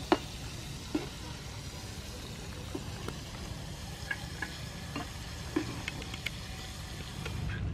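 Battered squid deep-frying in hot soybean oil in a pan, a steady sizzle, with occasional sharp clinks of a metal spoon and wire strainer against the pan.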